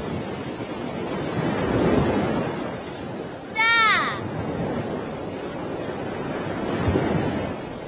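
Steady wash of ocean waves, swelling about two seconds in and again near seven seconds. A short high cry that falls in pitch cuts in about three and a half seconds in.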